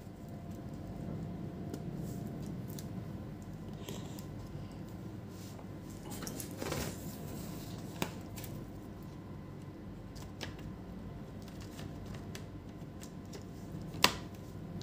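Light handling sounds of a laptop being worked on, small rustles and clicks over a steady hum, with one sharp click near the end.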